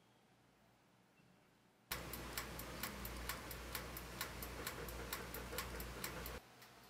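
Mechanical timer of a countertop electric oven ticking steadily, about four to five ticks a second, over a low hum while the oven preheats. The ticking starts about two seconds in after near silence and drops much quieter near the end.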